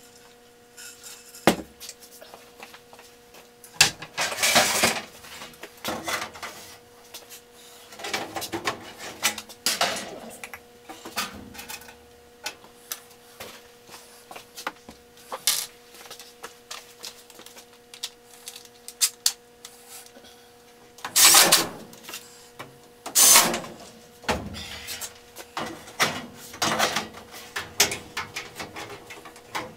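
Sheet-metal furnace access panels being handled and fitted back onto the furnace cabinet: irregular metallic clanks, knocks and rattles, loudest a few seconds in and again about three quarters of the way through, over a steady low hum.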